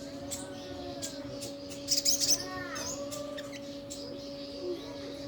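Little spiderhunter (sogon) calling: short sharp high chirps, loudest in a quick cluster about two seconds in, with softer arching call notes around them. A steady low hum runs underneath.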